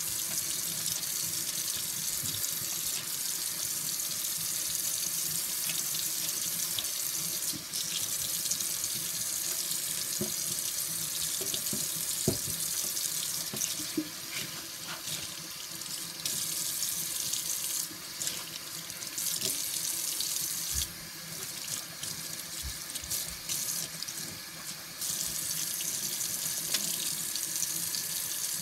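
Kitchen tap running steadily into a stainless steel sink while a sponge is rinsed and squeezed under the stream. From about halfway through, the splashing turns choppy and dips as hands and sponge break the flow.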